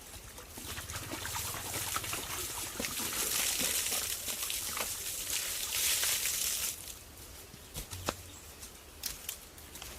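Water pouring and splashing steadily, cutting off suddenly about seven seconds in, followed by a few light knocks.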